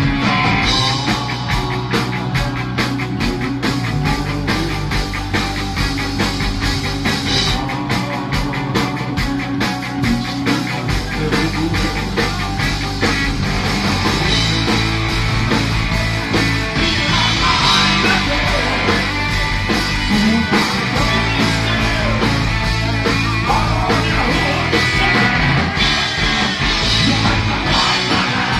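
Rock band playing live, heard close to the stage: a man singing over electric guitar and a steady drum beat.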